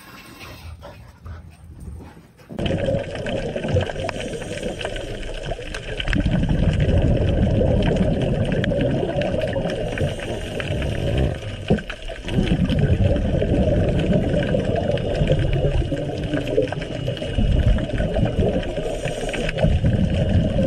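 Steady muffled rushing and churning of water picked up by an underwater camera, starting suddenly after a quieter couple of seconds and growing louder about six seconds in.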